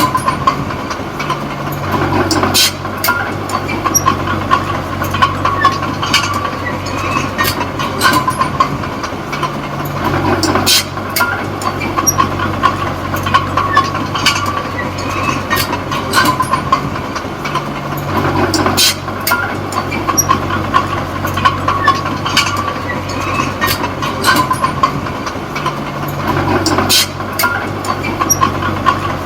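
Komatsu D20P small crawler bulldozer at work, its diesel engine swelling and easing in a repeating cycle about every eight seconds as it pushes soil and backs off. Sharp metallic clanks from the running gear are heard throughout.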